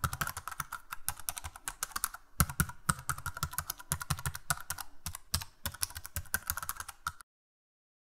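Rapid, uneven clicking of computer keyboard keys, a typing sound effect, that cuts off suddenly about seven seconds in.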